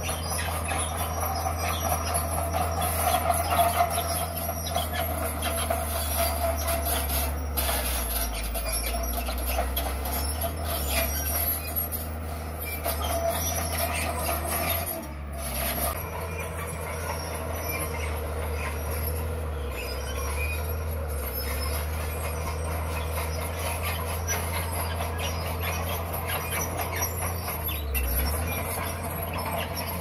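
Crawler bulldozer's diesel engine running steadily under load as it pushes dirt and stone, with its steel tracks squealing and rattling. The squeal is loudest about three seconds in and again a little before halfway.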